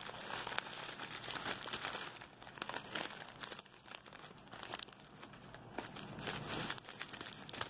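Packing paper crinkling and rustling as it is handled, a dense run of small crackles that thins out for a couple of seconds in the middle.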